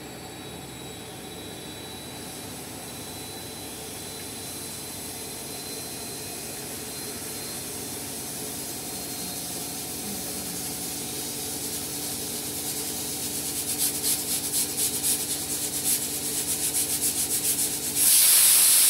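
Pressure cooker on a gas burner building pressure: a steady hiss that grows slowly louder, then rapid puffing of steam under the whistle weight about two-thirds of the way through. Near the end the cooker whistles, a loud, steady blast of escaping steam.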